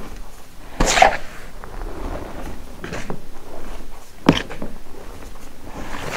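Hands crushing crumbly lumps of dusty powder between the fingers: soft crumbling and crackling with two sharper crunches, one about a second in and one a little after four seconds.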